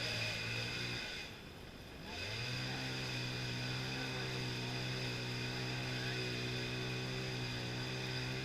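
Chainsaw running at high revs, let off the throttle briefly about a second in, then revved back up and held steady.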